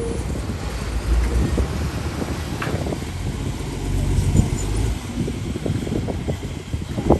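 Heavy diesel earthmoving machinery running with a low, steady rumble, with scattered knocks and clatter of stone.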